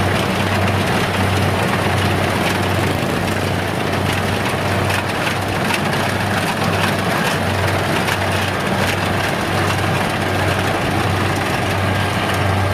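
Kubota DC-70G combine harvester's diesel engine running steadily under load as the tracked machine works through deep, soft paddy mud.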